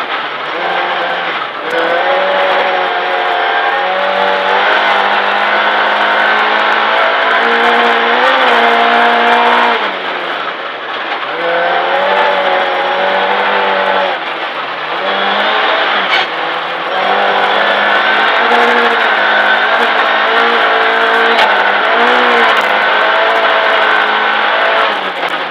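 Ford Fiesta R2 rally car's four-cylinder engine, heard from inside the cockpit, running hard at high revs in fourth gear. The revs drop briefly and pick up again about ten seconds in, again around fifteen seconds, and once more near the end, with scattered light clicks over the engine note.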